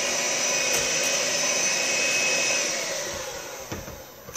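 Electric hand mixer running at speed as its beaters whip aquafaba (chickpea cooking water) toward a meringue in a glass bowl. Near the end the motor winds down, falling in pitch until it stops.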